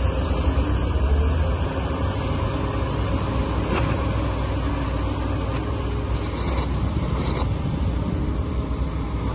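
Engine running steadily with a low rumble, with a few faint clicks over it.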